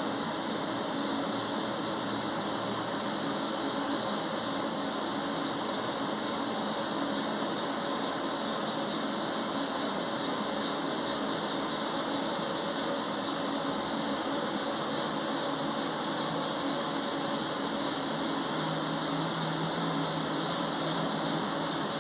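Steady, unchanging running noise of shop machinery: a broad whirring hum with a thin high-pitched whine held throughout.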